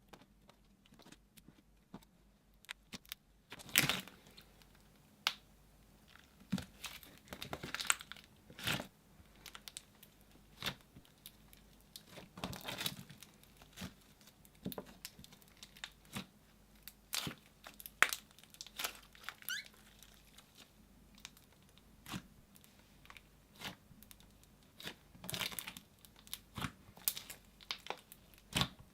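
Slime being pressed, poked and stretched by hand, giving irregular sticky crackles and sharp popping clicks.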